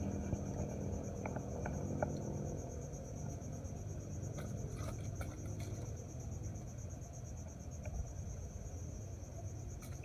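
Steady high-pitched insect trilling, crickets or similar, carrying on without a break over low background noise, with a few faint clicks in the first couple of seconds.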